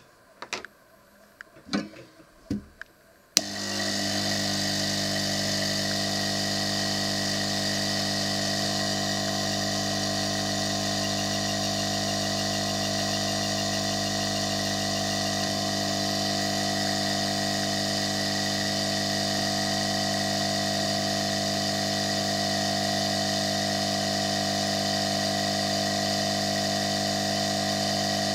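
ZD-939L hot air rework station switched on with a click about three seconds in, after a few clicks from its controls; its air supply then runs steady and really loud, with a hum and hiss, air set to maximum.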